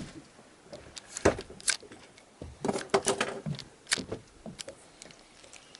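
Scattered knocks and clicks of handling, irregular and sharp, with the busiest clusters about a second and a half and three seconds in.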